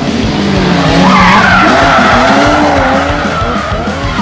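Rally car engine revving, its pitch rising and falling, with tyres skidding and sliding on a dirt road. The sound swells about a second in.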